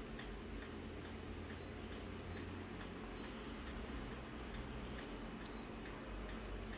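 Copier touchscreen control panel giving short high beeps as its on-screen keys are pressed, four times, over a low steady hum.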